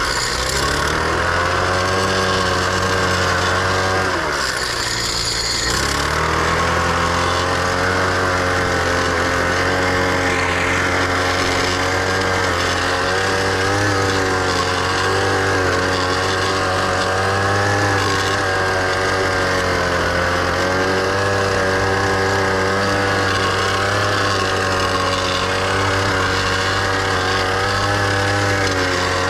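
Small air-cooled petrol engine of a mini tiller running hard as its tines churn garden soil, the engine note wavering with the load. About four seconds in, the engine speed sags briefly with a burst of noise, then picks back up.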